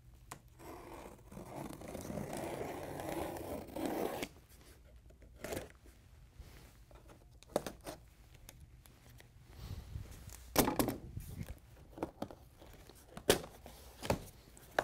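Scissors slitting the packing tape along the top seam of a large cardboard TV box, a continuous tearing rasp for about three seconds, followed by scattered knocks and scrapes of cardboard as the top flap is worked loose and lifted.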